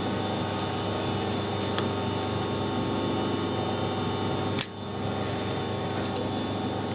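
Steady machine hum of a workshop lathe area, with a few light metallic clicks as a measuring tool is put to the knurled hardened-steel stud to check its size, and one sharper click about four and a half seconds in.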